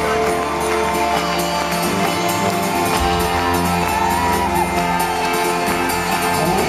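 Folk-rock band playing live, with acoustic guitar and double bass, while the crowd shouts and whoops over the music.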